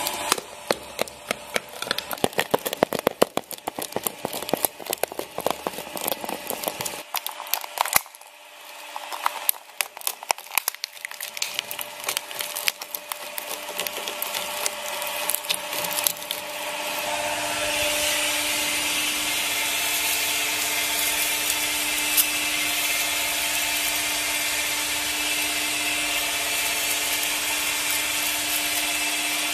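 Mini plastic shredder crunching up plastic pieces, a dense run of sharp cracks and snaps for about the first sixteen seconds. The cracking then dies away and the shredder's motor runs on with a steady hum.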